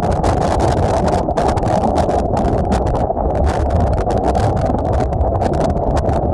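Strong gusting wind buffeting the microphone: a loud, continuous low rumbling rush that flutters without a break.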